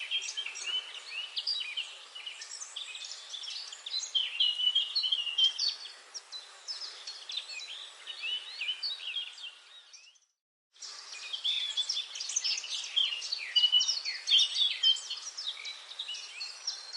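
Several birds singing and chirping at once in a forest, many short overlapping calls and warbles over a light hiss. About ten seconds in the sound cuts out completely for about half a second, then the birdsong resumes.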